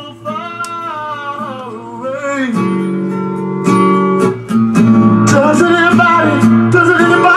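A song playing from a vinyl LP on a BSR Quanta 450SX record changer: a voice singing over guitar that starts as the stylus settles into the groove and grows louder over the first few seconds.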